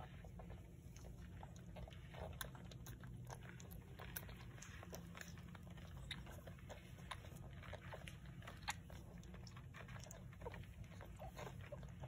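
Two-day-old French bulldog puppies suckling at their mother, with faint irregular smacking and clicking sounds over a low steady hum.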